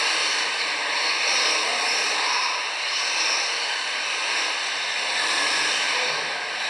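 Electric 1:10 RC touring cars racing on an indoor carpet track: a steady high-pitched whine of their electric motors and drivetrains.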